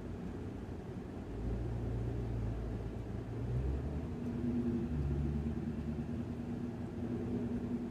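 Road traffic: low engine rumble of vehicles on a city street, growing louder about a second and a half in, with a steady higher engine hum joining about four seconds in.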